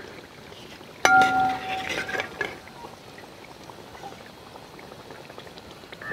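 Battered bajjis deep-frying in hot oil, a steady fine sizzle. About a second in, a metal clang rings out for about a second, a steel skimmer knocking against the aluminium frying pot.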